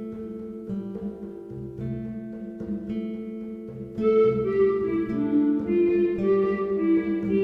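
Instrumental background music led by plucked strings like a guitar, with a melody of held notes; it gets louder about four seconds in.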